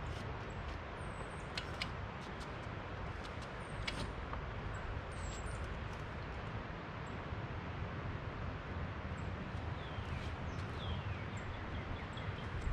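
Small birds calling over a steady rushing background noise: a few short high chirps, then several falling notes near the end.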